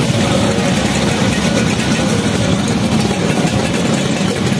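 Many classic Vespa scooters running at once as the group rolls off at low speed, their two-stroke engines blending into one steady, dense engine noise.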